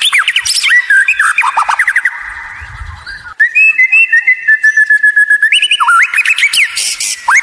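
White-rumped shama singing a loud, varied song of clear whistles and quick rising and falling notes, with a rapid trill held on one pitch through the second half.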